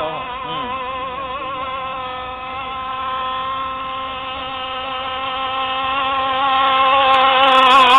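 Homemade RC rigger boat's CY 26cc two-stroke petrol engine running flat out, a steady high-pitched buzz with a slight waver in pitch. It grows louder over the last couple of seconds as the boat comes closer.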